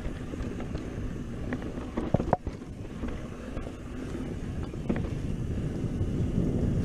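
Wind buffeting the microphone and mountain bike tyres rolling over a dirt singletrack on a fast descent. A few sharp knocks and rattles come about two seconds in and once more later, and the rush grows louder near the end.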